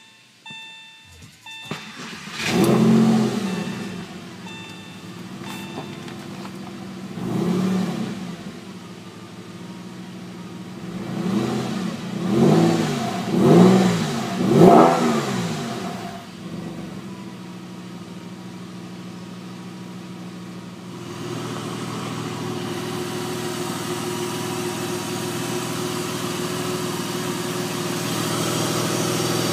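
Freshly rebuilt water-cooled 3.4-litre flat-six of a 1999 Porsche 996 starting about two seconds in, flaring up, then idling. Several quick throttle blips come around the middle, and the idle holds a steady, slightly higher note for the last third.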